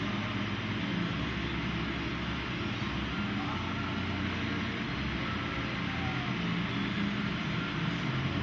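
Steady mechanical droning with a low hum, unchanging in level.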